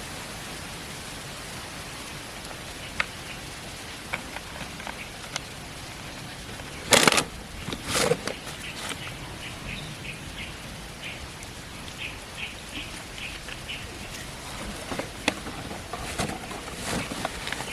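Outdoor pondside ambience with a steady hiss. Two loud sudden noises come about seven and eight seconds in, with scattered light clicks and a short run of faint high chirps near the middle.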